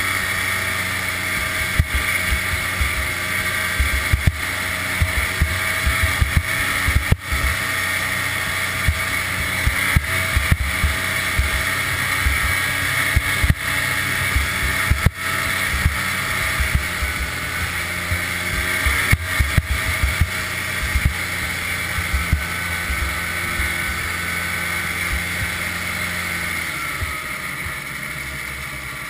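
1988 Ski-Doo Safari Citation 250 snowmobile's two-stroke engine running steadily under way, with a steady high whine and frequent knocks and thumps as the sled rides the trail. The engine eases off near the end.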